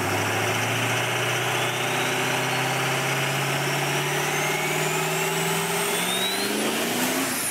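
Car engine running and revving steadily higher, its pitch climbing slowly and then faster near the end, with a thin rising whistle above it.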